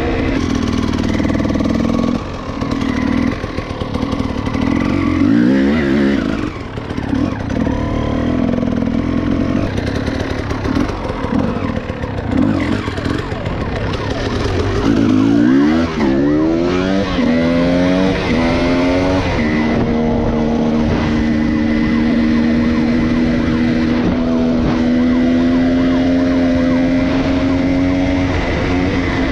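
Dirt bike engine heard from the rider's seat, revving up and dropping back through the gears several times in the first half, then holding a steady high pitch at constant speed for the last ten seconds. Wind rushes over the helmet microphone throughout.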